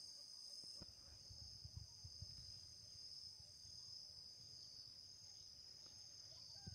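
Faint, steady high-pitched chorus of insects trilling without a break. A low rumble of wind on the microphone comes in about a second in and fades after a couple of seconds.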